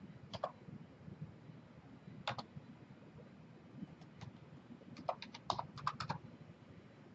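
Clicks of a computer keyboard and mouse: a few single clicks, a pair about two seconds in, then a quick run of keystrokes about five seconds in as a value is typed.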